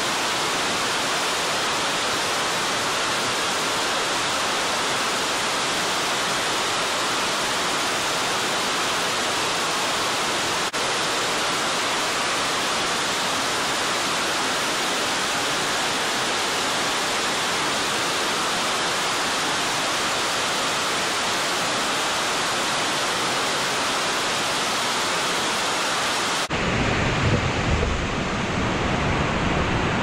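Two-tier waterfall, about 30 m high, pouring into its plunge pool: a steady, loud rush of falling water. Near the end the sound changes abruptly to a deeper, more uneven rush.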